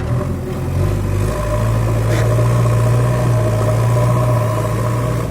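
JCB 3DX backhoe loader's diesel engine running steadily, a low drone that picks up slightly about a second in. A short knock is heard about two seconds in.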